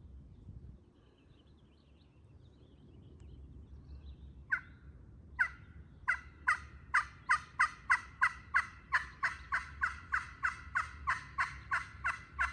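Turkey yelping: a long run of sharp yelps that starts about four seconds in with two widely spaced notes, then quickens to about three a second and keeps going.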